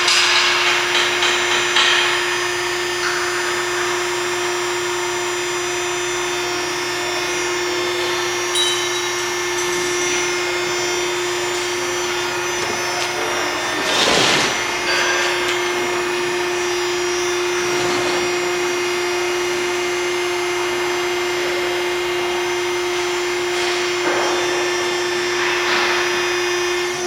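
A machine running with a steady whine and hum, with a rapid rattling clatter in the first two seconds and brief noisy swells about halfway through and near the end.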